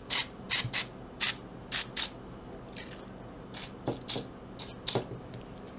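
A series of short squirts from a can of Liquid Wrench penetrating oil, about a dozen brief hissing bursts with pauses between them, lubricating the ratchet's gear mechanism. A few light clicks come in with the later squirts.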